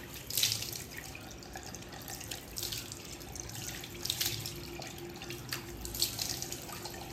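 Water running in a bathroom, with about four louder splashes as water is splashed over a face. A faint steady hum runs underneath.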